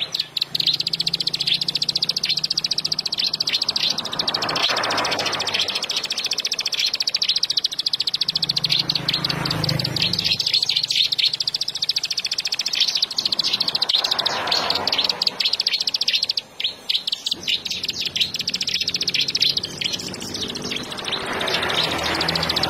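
Bar-winged prinia (ciblek) singing without a break: a rapid, high-pitched run of chirps.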